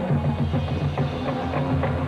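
High school marching band playing, with drums and percussion hits prominent over a full, rhythmic low end.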